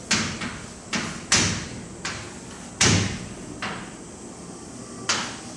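Writing strokes on a board as circuit symbols are drawn: about seven sharp, irregular strikes and scrapes, each fading within half a second.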